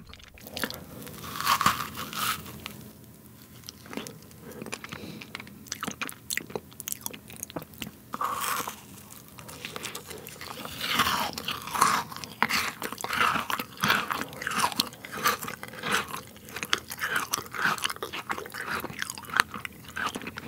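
Close-miked biting and chewing of a fresh-cream strawberry sandwich: soft bread and cream with wet, crunchy fruit bites. The chewing grows busier from about ten seconds in.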